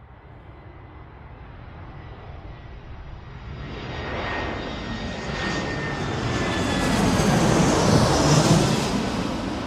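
A rushing engine noise, like an aircraft passing, grows steadily louder over about eight seconds, is loudest near the end, and then starts to fade. A faint whine in it drops slightly in pitch as it passes.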